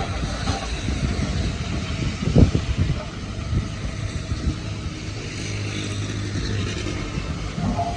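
Heavy diesel earthmoving machinery working on rock and soil fill: a steady low engine rumble with scraping and clattering. A loud knock comes about two and a half seconds in.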